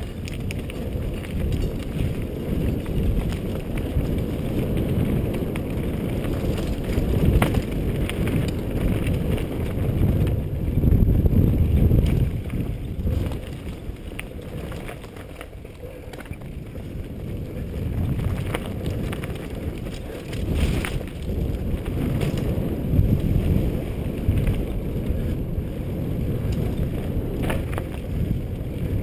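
Wind rushing over a helmet-mounted camera's microphone as a mountain bike rides fast down a dirt trail, mixed with the rumble of the tyres and occasional sharp rattles and clicks from the bike. It swells loudest about ten to twelve seconds in.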